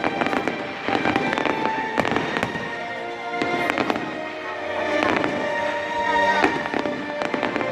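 Fireworks going off in quick succession, many sharp bangs and crackles, over music playing through loudspeakers.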